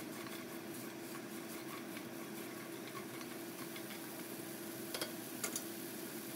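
Silicone spatula stirring chopped raw vegetables in an enamelled skillet, with light scattered clicks of the pieces shifting against the pan, then three sharp clicks about five seconds in. A steady background hum runs underneath.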